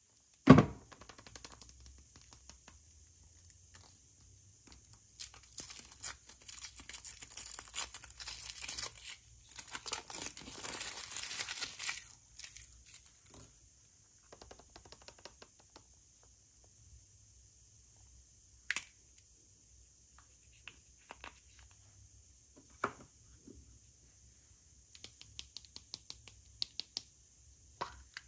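Packaging wrapper being torn and crinkled by hand, densest from about five to twelve seconds in. A sharp knock comes just after the start, and scattered small clicks and rustles follow the tearing.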